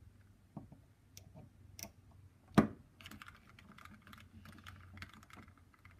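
Flathead screwdriver turning the small cord-terminal screws in an audiometer headphone: light scattered clicks and scraping of metal on the screw heads, with one sharper click about two and a half seconds in and busier small ticking after it.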